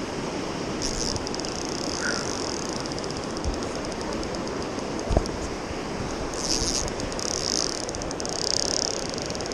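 A fly reel ratchets in rapid runs of clicks while a hooked king salmon fights on the line: a short spell about a second in, then longer spells in the second half. Under it the river rapids rush steadily, and there are a couple of dull knocks on the gear.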